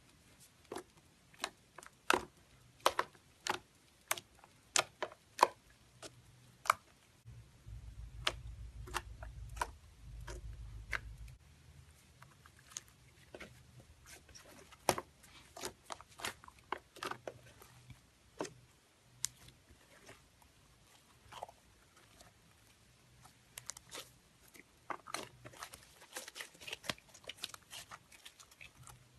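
Slime squished and poked by hand, giving irregular sharp pops and clicks, crowded together at first and again near the end.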